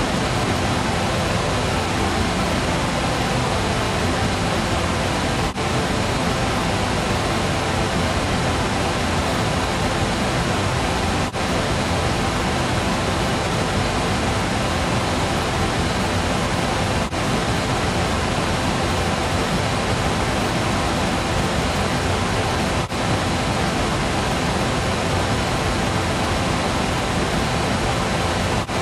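Flamethrower sound effect: a steady, loud rushing noise spread across the whole range, with faint pitched undertones. It is looped, dropping out for an instant about every six seconds before carrying on unchanged.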